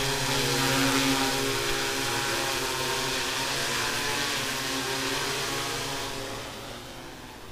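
Yuneec Q500 quadcopter's propellers and motors humming steadily as it lifts off and hovers close by, then fading near the end as it climbs away.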